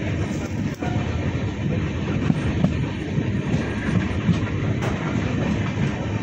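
Indian Railways express train running on the track: a steady low rumble of wheels on rail, with a few scattered clacks.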